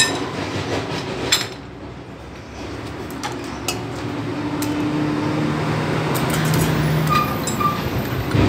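Steel and friction clutch plates from a Bajaj Pulsar 150 clutch pack clinking as they are lifted off the clutch basket and handled. A few separate sharp clinks sound over a steady background noise, with a low hum in the middle.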